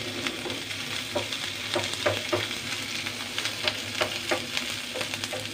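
Julienned carrot and green capsicum sizzling in hot oil in a nonstick frying pan, stirred with a wooden spatula that scrapes and taps against the pan at irregular moments.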